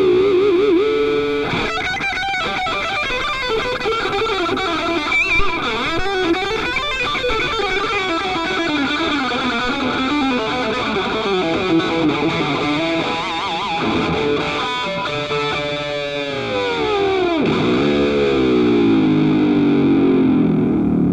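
Music: distorted electric guitar playing a bending, wailing line, with a long downward pitch dive near the end.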